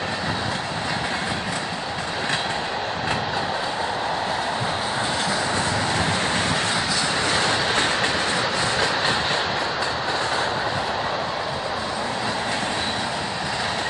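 Freight train of tank cars rolling past at close range: a steady rumble of steel wheels on the rails, with scattered clicks as the wheels pass over rail joints.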